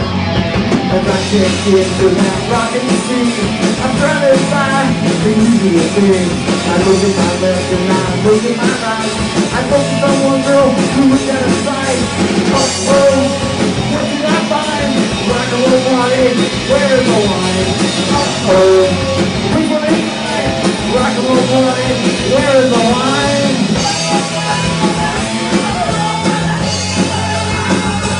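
Live rock band playing loud, driving punk-style rock: electric guitar, bass and drum kit, with a voice singing over the top.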